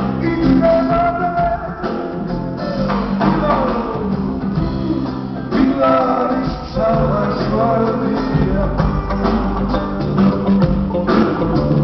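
Live band playing a rock song: electric guitars over a steady rhythm section, with a lead melody line that slides up and down in pitch.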